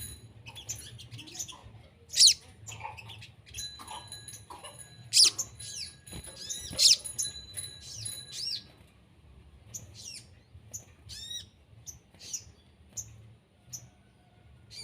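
Birds chirping and calling in quick, sharp notes that sweep up and down in pitch, the loudest a few seconds in. Steady high tones sound under the calls through the middle of the stretch.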